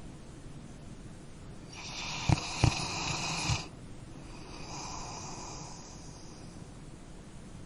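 Dog snoring: a loud snore starting about two seconds in and lasting nearly two seconds, with two sharp clicks in it, then a softer breath about a second later.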